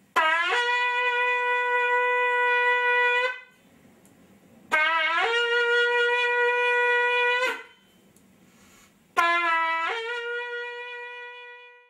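Three long blasts on a horn, each starting on a short lower note that breaks up to a held higher note. The third blast fades away gradually.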